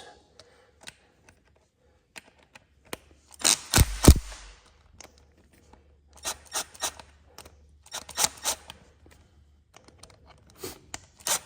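Hand tool tightening small bolts on a winch cable stopper: four short bursts of clicks and scraping, the loudest about four seconds in.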